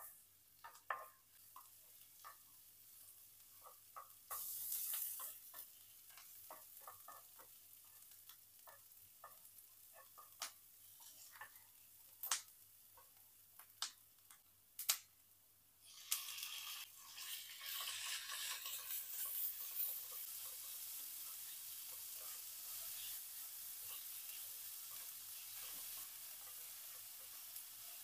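Light clinks and taps of utensils, with a short hiss about five seconds in; about sixteen seconds in, food goes into hot oil in a pan and a steady frying sizzle carries on.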